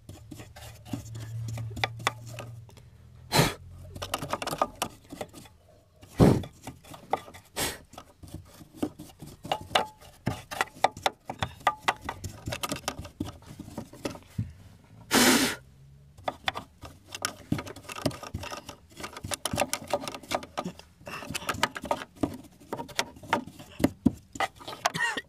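A paintbrush scrubbing dirt off the top of a car's fuel pump and fuel tank: many short, dry, scratchy brush strokes, with three louder sudden sounds along the way.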